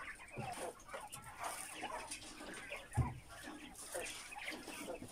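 Flock of caged white giant quail giving many short, overlapping chirping calls. A single thump about three seconds in.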